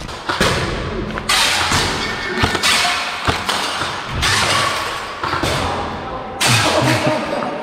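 Loud hissing in several bursts of about a second each, with knocks and thuds in between.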